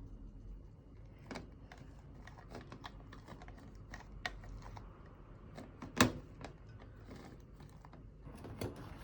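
Scattered light clicks and taps of kitchen work, food and utensils being handled on a counter, with one sharp knock about six seconds in.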